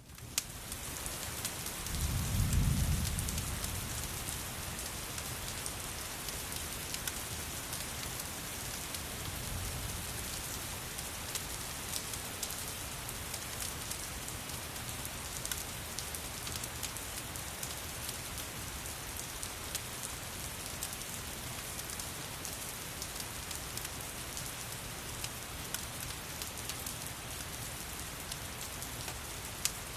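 Steady rain with a dense patter of drops. A low rumble swells about two seconds in and fades, and a fainter one follows near ten seconds.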